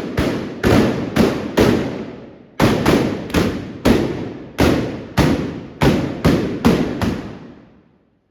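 Trabucs (blunderbusses) firing blank black-powder charges in a rapid, irregular volley of about fifteen loud shots, each with an echoing tail. There is a brief pause about two seconds in, and the shooting stops about seven seconds in.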